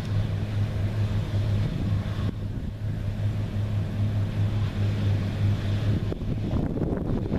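New Holland CR9060 twin-rotor combine running steadily under harvesting load in soybeans: an even machine drone with a constant low hum.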